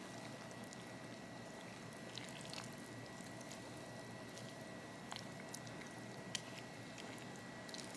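Faint, quiet sizzling with scattered light clicks and pops: enoki mushrooms and cabbage cooking in the oiled pot of an electric rice cooker.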